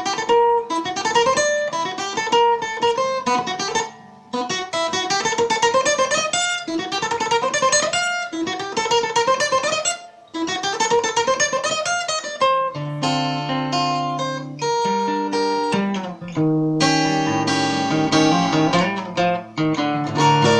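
Acoustic guitar playing fast rising single-note runs, the same passage several times over with short breaks, then slower held chords and notes from about twelve seconds in.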